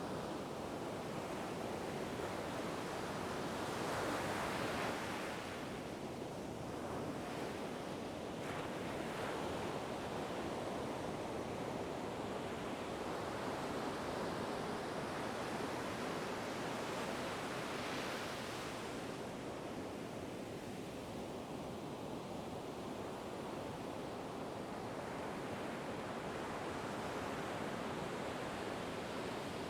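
Ocean waves breaking and washing in, a continuous rush of surf with louder surges about four seconds in and again about eighteen seconds in.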